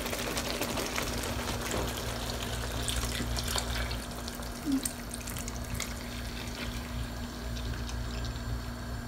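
Evaporated milk pouring from a can in a thin, steady stream into a pan of thick creamy sauce.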